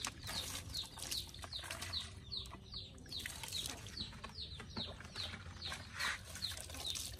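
A bird chirping over and over: short high falling chirps, about three a second.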